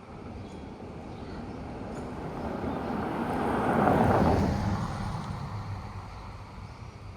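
A vehicle passing by: a rush of noise that builds, is loudest about four seconds in, then fades away.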